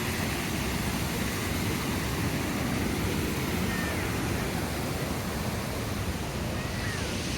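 Steady rushing of falling water, such as the cascades of a spring-fed stream.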